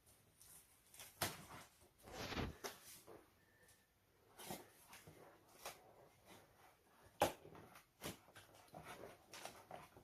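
Quiet, scattered handling noises: light knocks and clicks, the sharpest about a second in and again about seven seconds in, with a brief rustle about two seconds in.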